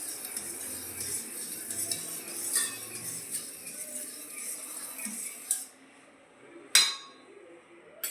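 A spoon stirring a herbal cough syrup of ginger, turmeric, pepper, tulasi, honey and lemon in a bowl, scraping and clinking against the sides. The stirring stops a little past halfway, and a single sharp clink follows.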